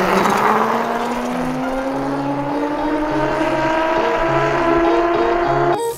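Electric hub motor of a converted 1999 Cobra 50 kids' dirt bike whining as the bike passes close and accelerates away. A rush of noise as it goes by near the start, then the whine's pitch rises steadily.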